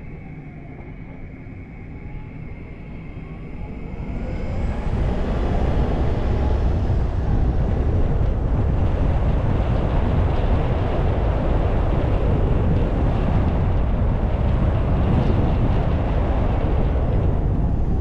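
Car driving along a street, tyre, engine and wind noise making a steady low rumble that grows louder about four seconds in as the car picks up speed.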